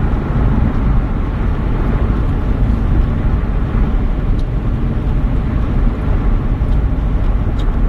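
Steady low rumble of a moving vehicle's road and engine noise.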